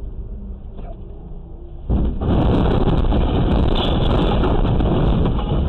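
Vehicle noise picked up by a dashcam: a steady low road rumble, then about two seconds in a sudden loud rushing noise that holds evenly for about four seconds as the vehicle draws close alongside a tanker truck.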